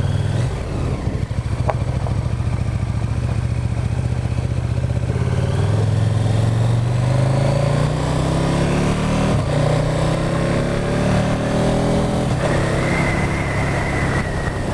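Motorcycle engine running under way, its pitch climbing as the bike accelerates from about a third of the way in, over steady wind and road rush.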